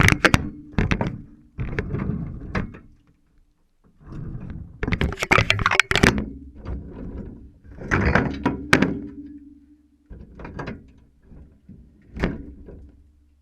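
Dishwasher door and racks being handled: a series of thunks, knocks and clatters, with a low steady hum in between.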